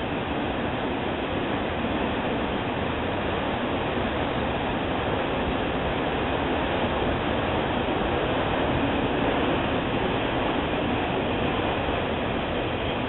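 Freight train of enclosed autorack cars rolling past, a steady noise of wheels on rail.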